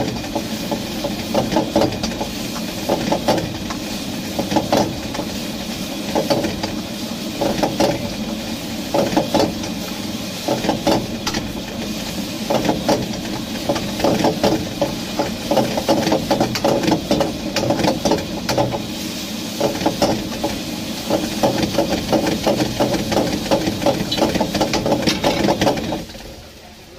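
Two metal ladles clanking and scraping against a steel wok in quick, irregular strokes during stir-frying, over a steady roar from the gas burner. The clatter and roar drop away sharply about a second before the end.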